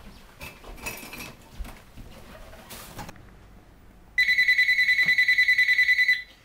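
Telephone ringing: one electronic ring with a rapid trill, about two seconds long, starting about four seconds in.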